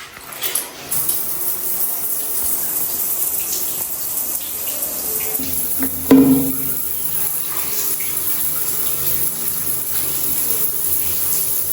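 Tap water running steadily into a sink, with a single knock about six seconds in.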